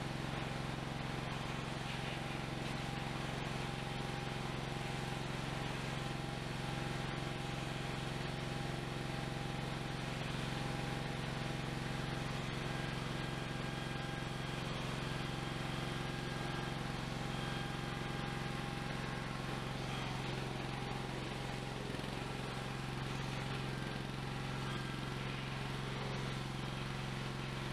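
Shop-built forklift's motor running steadily with a constant low hum while it handles a rack of steel sheet near its 1,000 lb design limit.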